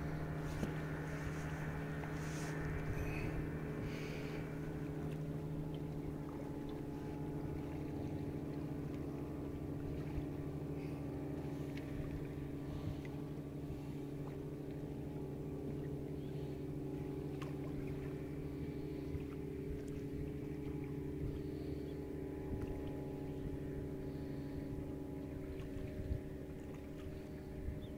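Boat's outboard motor idling steadily, an even low hum.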